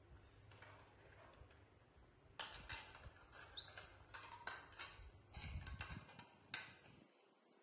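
Plates set down one after another on a tiled floor, a run of light clicks and taps, with one short rising squeak from a baby monkey about three and a half seconds in.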